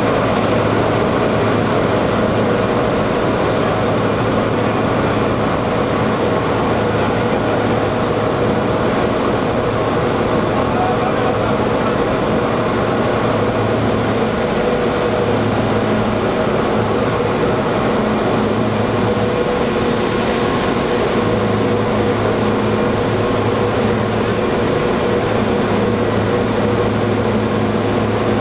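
Cable car winding machinery running: electric drive motors, gearboxes and large sheave wheels hauling the cables, giving a loud, steady mechanical drone with a low hum.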